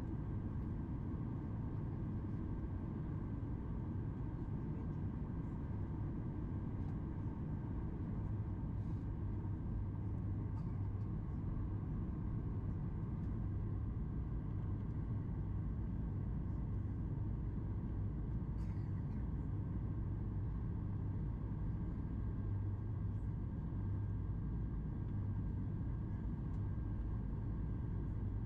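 Cabin noise inside a Boeing 737 MAX 8 airliner: a steady low rumble of the engines and airflow, with a faint thin whine held at one pitch.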